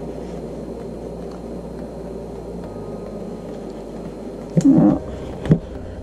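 Steady background hum and hiss of room noise. Near the end comes a brief wordless vocal sound and two light taps as a sticker book is picked up and handled.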